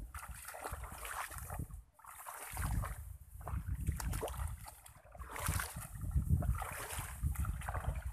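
Footsteps wading through shallow muddy water, splashing in uneven surges with the strides, with wind rumbling on the microphone.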